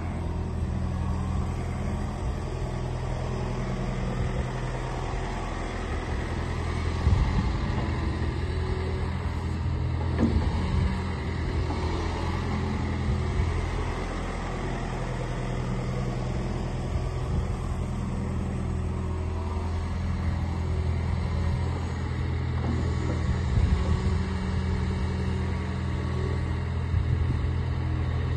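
Diesel engine of a Sany SY80U tracked excavator running steadily while the upper structure slews round and back, with a few sharp knocks now and then.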